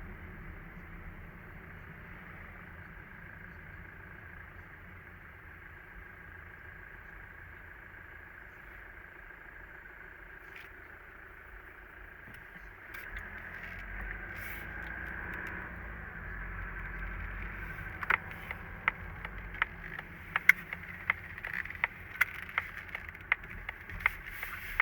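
A steady whistle-like tone over the running noise of a Mazda CX-30's 1.8-litre diesel, swelling about halfway through. It is a recorder-like whistle from the engine bay that has persisted despite replacement of the turbocharger, engine and transmission. From about two-thirds in, a string of sharp, irregular clicks is the loudest sound.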